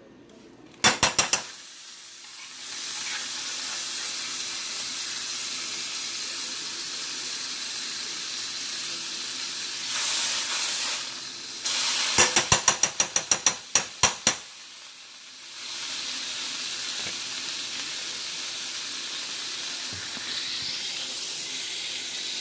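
Pancake batter sizzling in a hot pan, a steady hiss that drops out briefly near the middle and resumes. A few sharp clicks about a second in and a quick run of about a dozen taps later on, a utensil stirring or knocking against the bowl or pan, are the loudest sounds.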